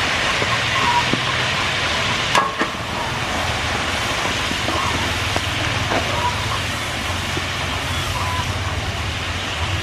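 Whole quails deep-frying in hot oil in a large wok, a steady sizzling hiss, with a metal spatula stirring them and a sharp click about two and a half seconds in. A low steady hum runs underneath.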